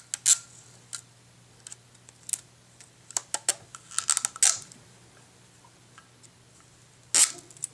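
Thin clear plastic tear strip being pulled off a small clear hard-plastic box: scattered crinkles and clicks of film and plastic. The sharpest come in a cluster around four seconds in and again near the end.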